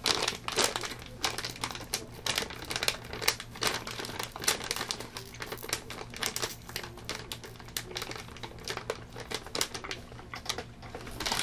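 Plastic candy bag of gummy Skittles crinkling irregularly as it is handled.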